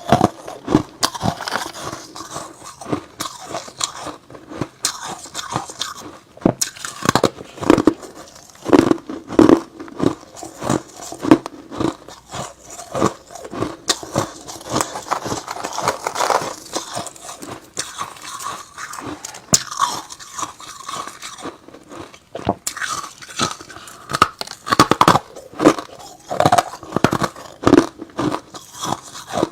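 Close-up biting and chewing of hard ice and freezer frost: irregular sharp crunches and crackles, several a second, with brief pauses between bites.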